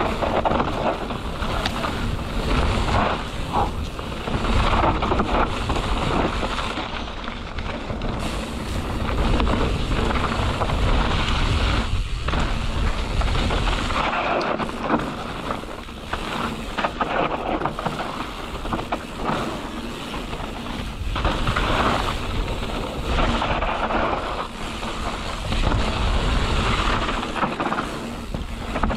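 Wind rushing over the microphone with the rumble of mountain bike tyres on a loose dirt trail during a fast descent, swelling and dipping as the bike hits bumps.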